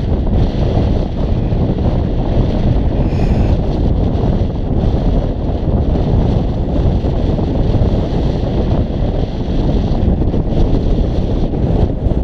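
Strong wind buffeting the camera's microphone in a steady low rumble.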